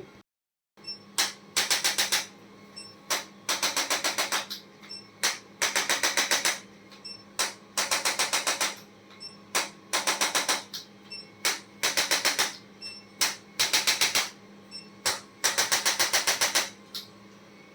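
Rapid mechanical clicking in runs of about eight to ten clicks, each run lasting about a second and recurring every couple of seconds, with single clicks between the runs.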